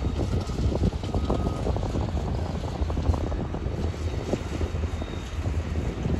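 Freight train of tank cars rolling past, a steady rumble with irregular clanks and clicks from the wheels and couplers, and wind buffeting the microphone.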